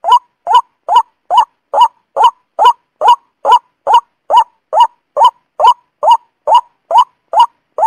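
Lure recording of the truok sawah, a paddy-field bird: one short, rising call note repeated at a perfectly even pace of a little over two calls a second, loud and clean.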